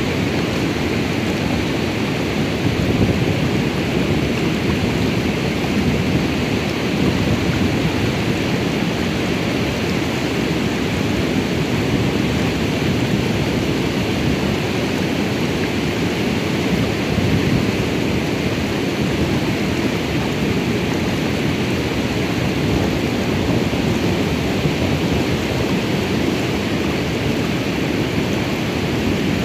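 Steady rushing of the Salt River's fast, shallow riffle, an unbroken noise with a low rumble.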